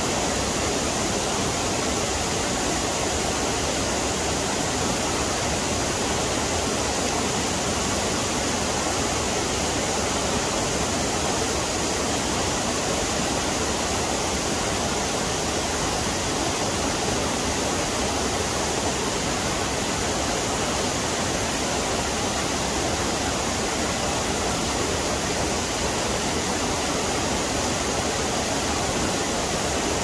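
Small waterfall cascading down stepped rock ledges in a mountain stream: a steady rushing of water.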